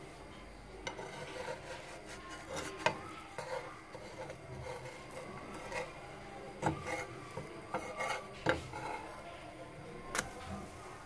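Metal slotted spatula scraping and tapping against a flat frying pan as it is worked under a pancake, with scattered sharp clicks and a sharper knock about ten seconds in as the pancake is flipped.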